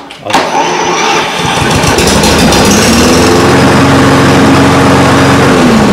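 Single-cylinder Briggs & Stratton engine of a Toro 21464 push mower catching and starting, settling into a steady run about halfway in, then winding down near the end as it shuts off.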